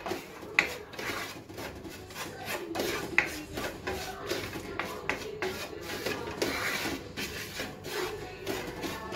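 A spatula scraping and stirring dry-roasting grated coconut and ground spices (turmeric, coriander and chilli powder) in a nonstick frying pan. It makes an irregular run of rasping strokes with a couple of sharper clicks.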